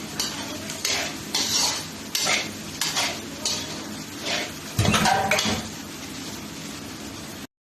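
A cooking spoon scraping and stirring onion, garlic and ginger frying in a kadhai, about two strokes a second, with sizzling beneath; one louder clatter comes about five seconds in. After that the stirring stops, leaving the sizzle, and the sound cuts out briefly near the end.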